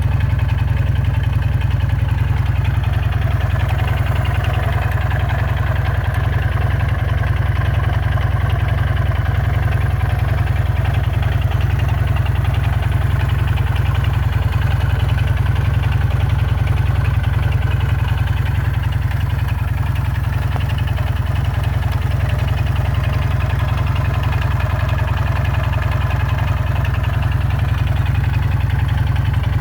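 Jawa 350 motorcycle engine idling steadily, with a rapid, regular knock running in time with the engine. The owner takes the knock for a crankshaft and/or connecting-rod fault.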